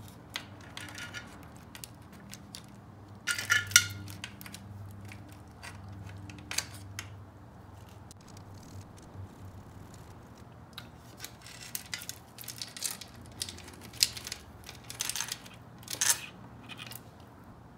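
Scattered metallic clicks and clinks of hand tools and small engine parts as the cam chain guide bolts and cam chain are taken out of a Yamaha YFZ450 engine. There is a cluster of louder clinks about three and a half seconds in and a run of them over the last several seconds.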